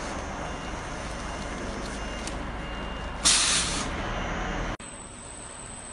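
Automatic quilt roll-packing machine running with a steady factory hum. About three seconds in, a sudden loud hiss of compressed air vents from its pneumatic system and fades over a second or so. Near the end the sound drops abruptly to a quieter hum with a thin high whine.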